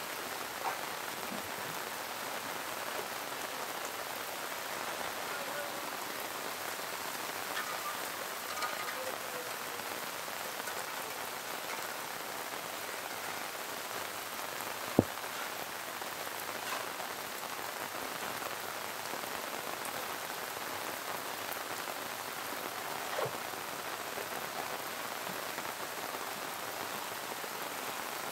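Heavy rain falling steadily, a constant even hiss of drops on the ground. A single sharp click sounds about halfway through.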